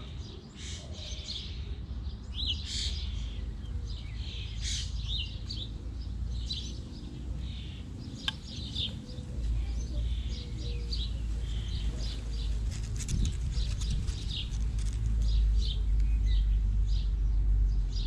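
Small garden birds chirping in many short, repeated notes, over a low rumble that grows louder in the second half.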